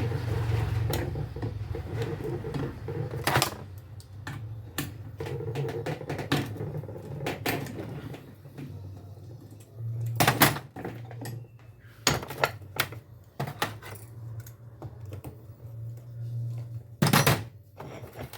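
Scattered clicks and metallic knocks of hand tools and parts being handled while a car starter motor's brushes and brush holder are taken apart. Two sharper knocks stand out, about ten and seventeen seconds in, over a steady low hum.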